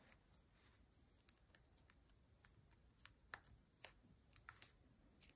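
Near silence with faint, scattered small clicks and light rustling: folded paper pieces and metal wire paper clips being handled by hand.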